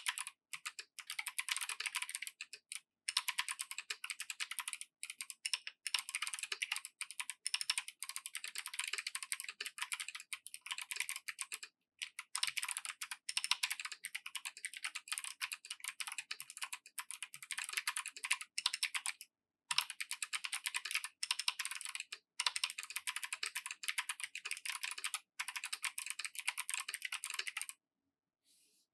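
Mechanical keyboard with Kailh Box Jade clicky switches, a brass plate and PBT keycaps being typed on fast and steadily: a dense stream of clicks broken by a few short pauses. The typing stops about a second before the end.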